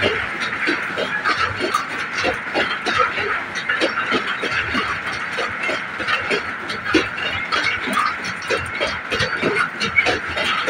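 Loaded two-tier car-carrier freight wagons rolling past close by, a steady rushing wheel-on-rail noise with many irregular clicks and knocks from the wheels and couplings.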